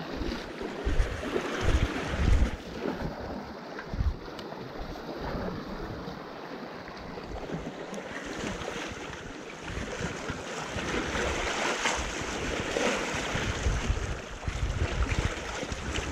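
Wind buffeting the microphone in irregular gusts, over the wash of sea waves against the breakwater's concrete tetrapods.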